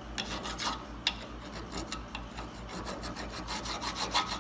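Hand file rasping in short, repeated strokes on the metal yoke of a U-joint drive shaft, deburring the clip groove so the retaining clip will seat.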